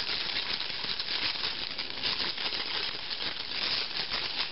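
Antique cast-iron Taplin's Dover Pattern Improved hand-crank egg beater being cranked fast with its beaters spinning empty in the air: a steady, dense mechanical rattling clatter.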